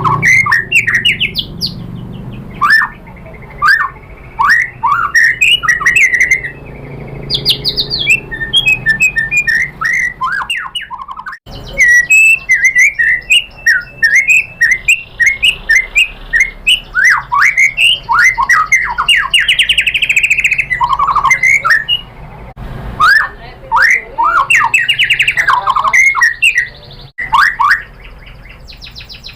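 White-rumped shama (murai batu) singing a fast, varied run of whistled and chattering phrases, many quick rising and falling notes with sharp clicks among them. The song breaks off abruptly and resumes a few times.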